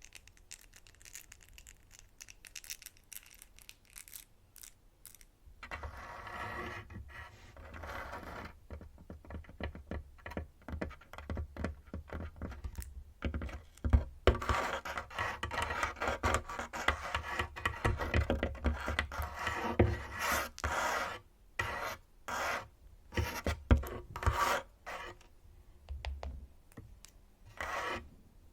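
Fingernails tapping and scratching on a tabletop: quick runs of clicking taps alternating with stretches of continuous scraping, and separate taps again near the end.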